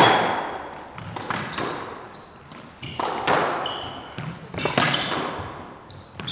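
Squash rally: the ball is struck by racquets and smacks the walls every second or two, often in quick pairs, each hit ringing in the enclosed court. Short high squeaks of sneakers on the hardwood floor come between the hits.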